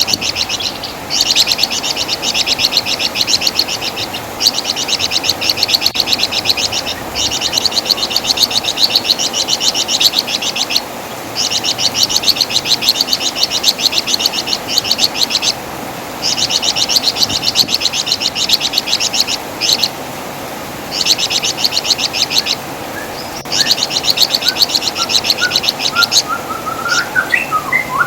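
Flamboyan (wergan Jawa) songbird singing: rapid, high-pitched chattering trills in phrases a few seconds long, each broken by a brief pause.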